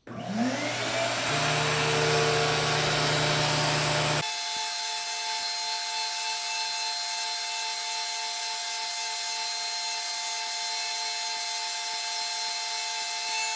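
Flowbee haircutting system (vacuum cleaner with clipper head) running, held against the hair: it starts up with a rising whine, then runs steadily with a rush of air and a high whine. About four seconds in, the low hum drops out and the tone shifts. It is switched off near the end, its whine falling away.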